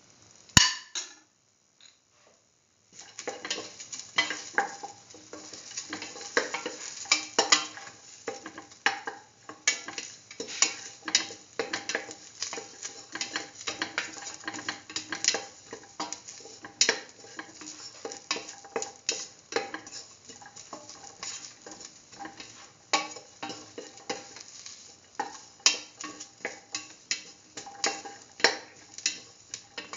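A spatula stirring sliced onion, shallots, garlic and ginger in a stainless steel pan, clacking and scraping against the metal over a light sizzle of frying. After a single clack near the start, the stirring runs continuously from about three seconds in, with irregular sharp knocks.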